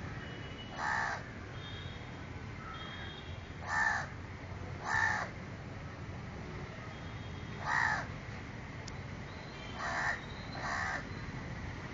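A crow cawing: six single caws spaced a second or more apart, the last two close together near the end.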